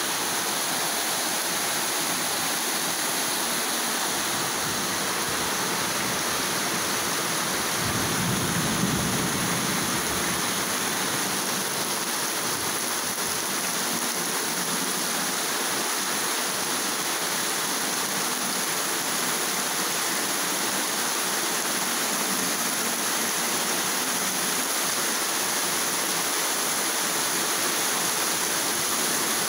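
Heavy downpour: a steady hiss of rain pouring onto trees, ground and puddles. A brief low rumble comes through about eight seconds in.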